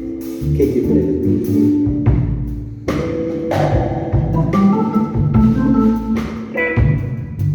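Live band playing an instrumental stretch with no vocals: drum kit strikes over bass and sustained instrument notes, with a run of rising notes in the second half.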